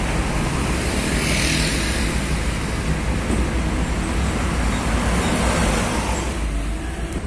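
Road traffic with heavy trucks: engines and tyre noise running steadily, with a brief louder hiss about a second in.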